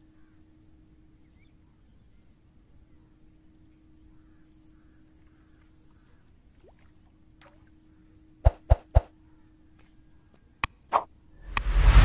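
Faint, steady outdoor background, then a series of sharp, very short click sound effects, three in quick succession and then a few more, with a loud rushing burst just before the end, as from an animated like, subscribe and notify button overlay.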